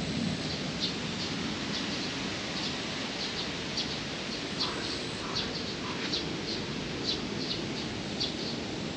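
Small birds chirping over and over, short high chirps about two or three a second, over a steady low outdoor rush.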